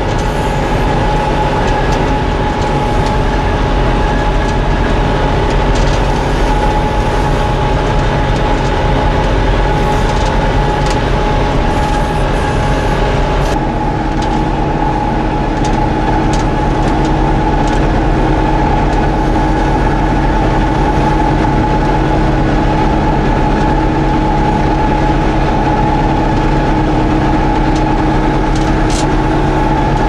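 John Deere 6410 tractor and John Deere 535 round baler running while picking up grass hay to start a bale: a steady mechanical drone with scattered sharp ticks. The pitch of the drone shifts slightly about halfway through.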